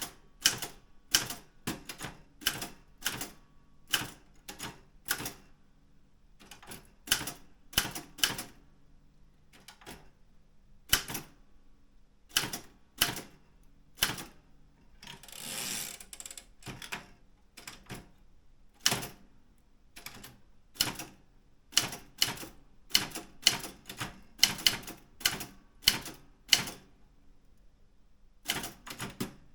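Daro Optima M16 manual typewriter being typed on: sharp key strikes at an uneven pace of one to three a second, broken by short pauses, with one longer noisy sound lasting about a second halfway through.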